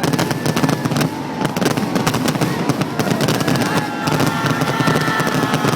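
Aerial fireworks going off in a rapid run of crackling bangs, with high whistling tones that slowly fall over the second half.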